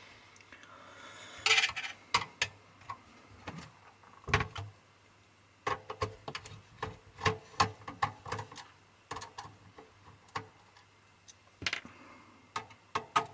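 Irregular clicks and light knocks of a screwdriver and hands handling a DVD recorder's sheet-metal chassis and circuit board.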